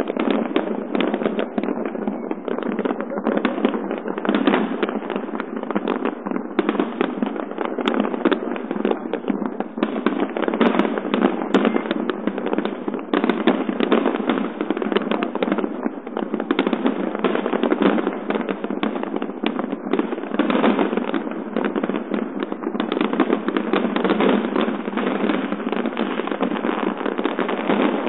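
Large fireworks display: many shells bursting in quick, unbroken succession with continuous crackling, recorded on a phone that cuts off the deep booms and the highest sparkle.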